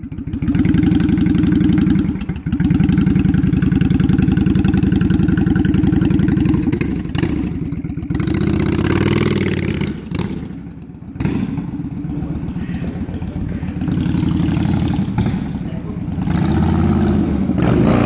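1998 Honda VT1100 C3 Shadow Aero's V-twin engine running loudly through short, wrapped Hard Krome exhaust pipes, first at a standstill. It revs up and down as the bike pulls away about eight seconds in, drops off as it rides away, and grows louder again near the end as it comes back.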